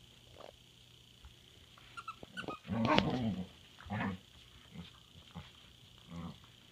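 Puppy growling in play: a drawn-out growl about three seconds in and shorter growls near four and six seconds in, with a few soft clicks just before the long one.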